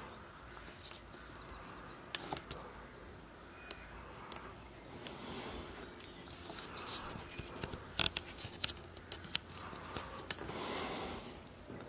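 Garden ambience: scattered sharp clicks and ticks, a few short high chirps, and soft patches of background noise.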